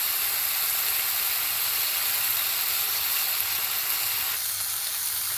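Marinated bone-in chicken fillet sizzling on an oiled ridged grill pan: a steady frying hiss as the first side sears. The hiss thins slightly about four seconds in.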